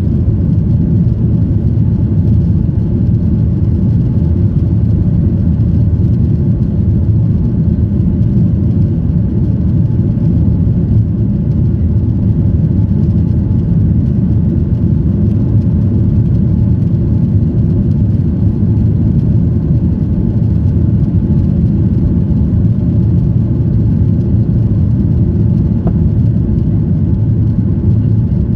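Steady low rumble of a Boeing 737-800's CFM56-7B engines and rushing airflow heard inside the cabin as the airliner climbs out after take-off.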